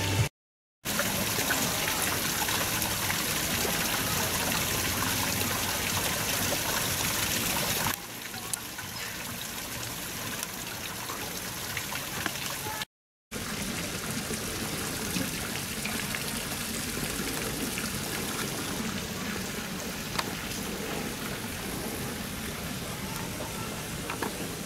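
Steady rush of running water. It drops out briefly twice and is a little quieter from about eight seconds in.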